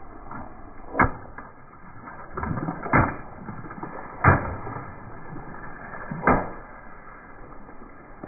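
Long water-filled balloons bursting one after another under a slowly rolling car tyre: four sharp pops spaced one to two seconds apart.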